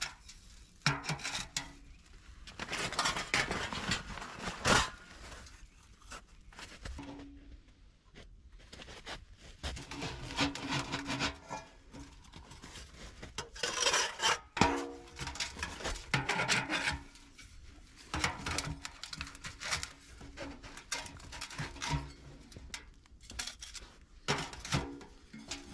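Metal stovepipe of a small cylindrical camp wood stove scraping and grating in irregular bursts as its sections are twisted and pushed together by hand.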